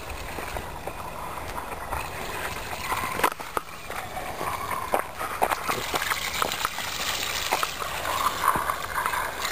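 Water splashing and gurgling from an outdoor standpipe tap, growing louder in the second half, with scattered footsteps through grass.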